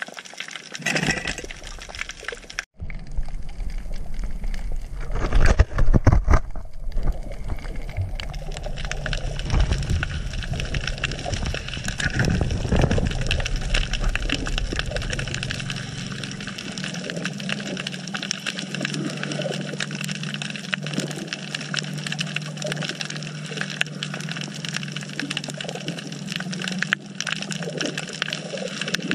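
Underwater sound through a camera housing: water rushing and knocking on the housing in the first half, over a constant fine crackle. A low steady hum takes over in the second half.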